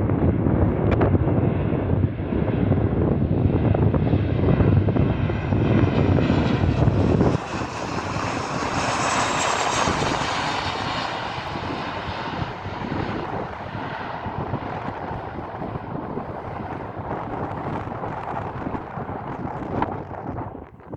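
Ryanair Boeing 737 jet engines passing by, the roar growing to its loudest about nine seconds in and then slowly fading. Heavy wind rumble on the microphone cuts off abruptly about seven seconds in.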